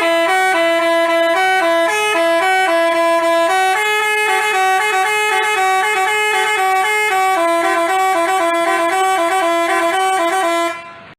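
Basuri telolet multi-tone bus horn playing a quick, continuous melody of stepping notes, cutting off near the end.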